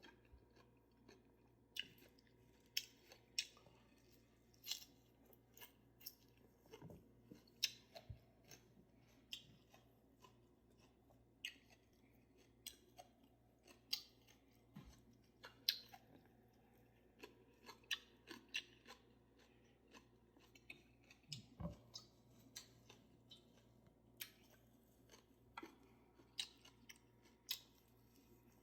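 Close-up open-mouthed chewing: wet, smacking clicks of the mouth and teeth, about one or two a second, on a meal of rice, cucumber, kimchi and egg.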